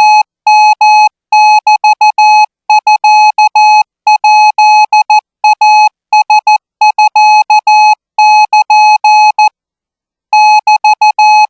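Morse code sent as a steady beep switched on and off in short dots and longer dashes, keyed at about 20 words per minute in Thai Morse code. A pause of nearly a second falls near the end before the keying resumes.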